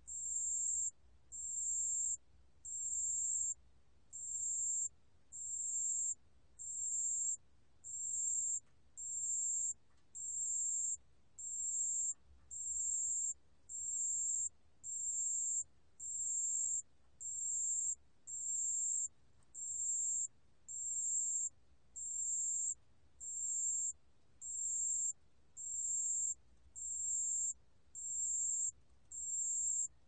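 Pale bell cricket (담색방울벌레) singing at 28 °C: a high, pure, ringing trill a little under a second long, repeated very evenly about every 1.2 seconds.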